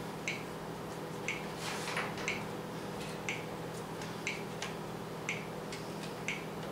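Countdown ticks from an indoor-soccer game control system, one short sharp tick each second as the game clock runs down its last seconds, over a faint steady hum.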